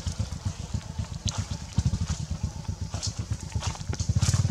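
Small engine idling with a fast, even, low pulse that gets a little louder near the end, with a few light clicks over it.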